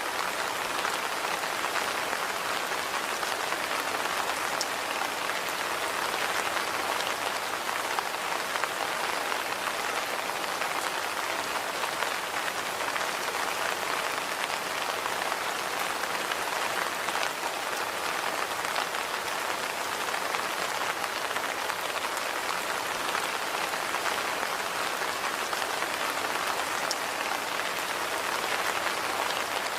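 Steady rain falling, an even hiss with many fine drop ticks on hard surfaces.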